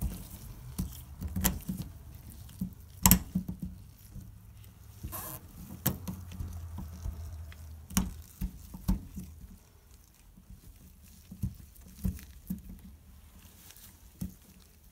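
Irregular soft clicks, taps and rubbing from nitrile-gloved fingers working a rubber O-ring onto a faucet body, with sharper clicks about three seconds in and again around eight seconds.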